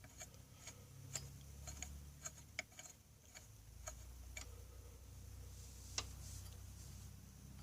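Faint, irregular clicks and ticks from turning the Hallicrafters S-38's tuning dial on its freshly restrung dial cord, over a low steady hum.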